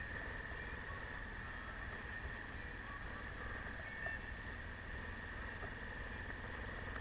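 Enduro motorcycle engine running at low revs as the bike rolls slowly over snow, with a steady high-pitched whine over a low rumble.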